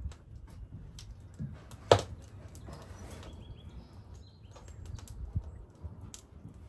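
Wood fire crackling in a wood stove: scattered small crackles and one sharp, loud pop about two seconds in, over a low steady rumble.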